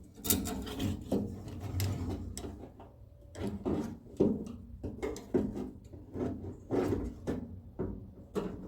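Metal door latch parts and linkage rods being worked into place inside a vehicle door: irregular clicks, knocks and short scraping rubs.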